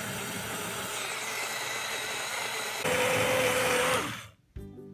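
Extsud portable USB rechargeable blender running with a steady whir; about three seconds in a louder run with a steady whine as it spins water in the glass jar, stopping about four seconds in and spinning down. Music starts near the end.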